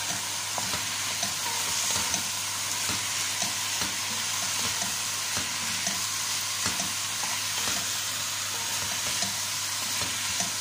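Chicken pieces frying in oil in a pot with curry powder and spices, a steady sizzle, while a spatula stirs them, with many small scrapes and knocks against the pot.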